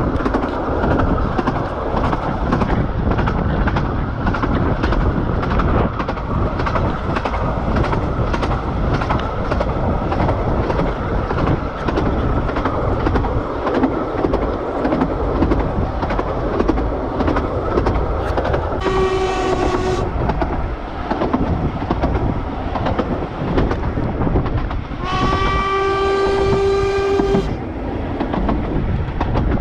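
A 15-inch-gauge narrow-gauge train running along the line, a steady rumble with the rhythmic clatter of wheels over the rail joints. About two-thirds of the way through, the locomotive sounds a short blast, then a longer one some six seconds later.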